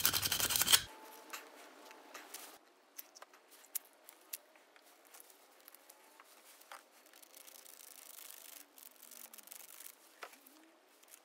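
Sandpaper rubbing briskly on a brass pen tube to scuff it for glue, stopping abruptly about a second in. After that, only faint scattered clicks and taps.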